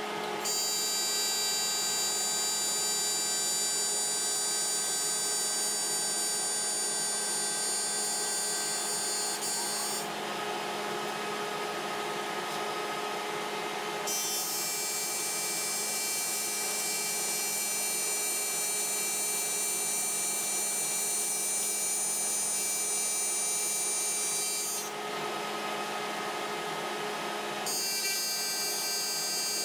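Welding arc on aluminum tubing, buzzing in three long stretches with short breaks between beads, over a steady machine hum.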